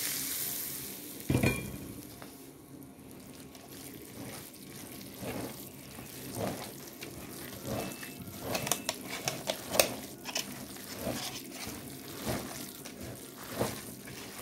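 Hot oil sizzling on raw chicken mince and spices, dying away within the first second, then a single knock. After that, a hand kneads the wet mince in a steel bowl: irregular squelches and light clicks.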